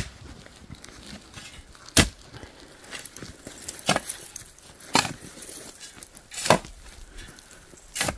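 Long-handled digging tool striking into rocky dirt, five separate chopping blows about one to one and a half seconds apart.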